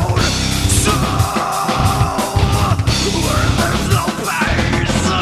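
Heavy metal music with distorted guitars, pounding drums and a yelled or sung vocal line.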